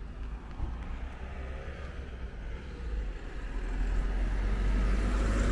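A car driving past on the street, its engine and tyre noise swelling and loudest near the end.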